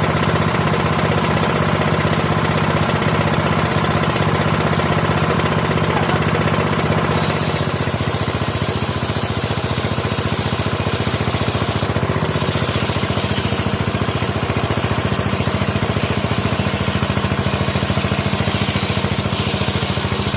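Sawmill machinery running steadily with a low, even engine hum. About seven seconds in a high hiss joins it and continues, with a short break about twelve seconds in.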